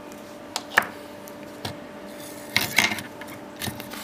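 Metal hand tools, pliers and a soldering iron, clinking, tapping and scraping on a floppy drive's circuit board and metal frame while a stubborn capacitor is worked loose. There are a few separate knocks, the loudest about a second in, then a quick cluster a little before three seconds, over a faint steady hum.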